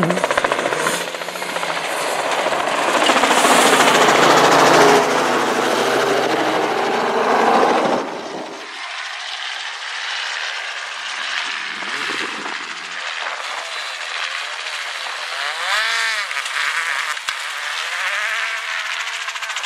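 Citroën C3 Rally2's 1.6-litre turbocharged four-cylinder engine driven flat out on loose gravel, loud and close for the first eight seconds with a dense rapid crackle over the engine note. After that it is further off, its revs rising and falling through the gear changes.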